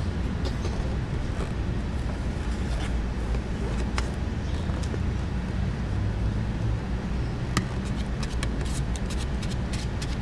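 A steady low rumble with scattered light clicks and taps from handling a plastic tint squeegee and sponge, the clicks coming thick and fast in the last few seconds.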